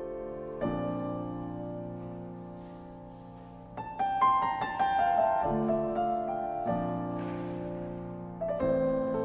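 Slow piano music: held chords that fade slowly, with a quick run of higher notes about four seconds in.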